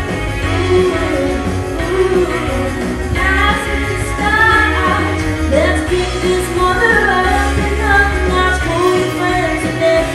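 A female vocalist singing into a microphone over amplified backing music with a steady bass line.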